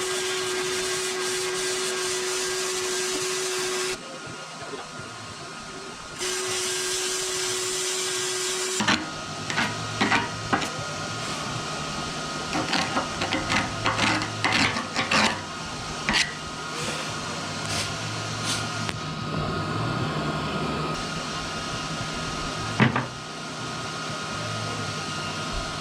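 MIG welding arc hissing steadily with a steady buzzing tone as beads are run on a steel dozer blade edge, stopping about four seconds in and again after a second short run near nine seconds. After that an engine runs steadily under a string of sharp metal clinks and taps, with one loud clank near the end.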